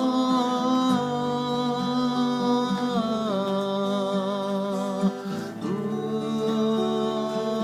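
A band playing a slow song: guitar accompaniment under long held melody notes, sung or hummed, that slide from one pitch to the next.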